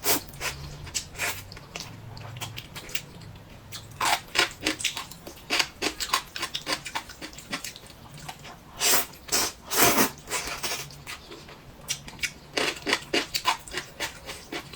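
A person eating close to the microphone: chewing and crunching, with irregular clicks and wet smacks, and a few louder, longer sounds about nine and ten seconds in.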